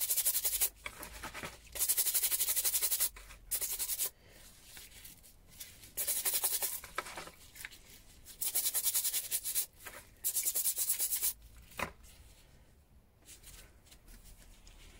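A stiff-bristled scrubbing brush scrubbing a small rusty adjustable wrench wet with rust-remover solution, cleaning off loosened rust after a soak. It comes as rapid back-and-forth strokes in bursts of about a second, with short pauses between them, and goes quiet for the last few seconds.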